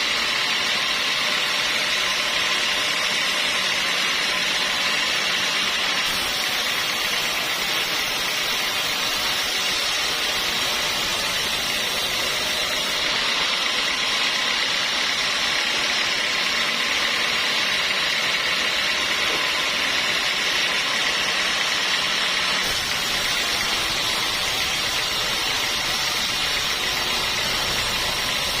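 Sawmill saw running steadily, a continuous hissing whine that holds an even level, with slight shifts in tone a few times.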